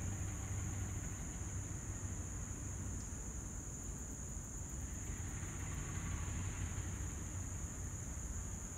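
Two GE B23-7 diesel locomotives approaching in the distance, heard as a low steady rumble that grows a little stronger over the second half. A steady high insect drone runs beneath it.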